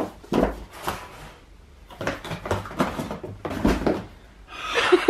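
Books being pulled out of a cardboard box and set down: irregular knocks, thumps and rustling from handling them.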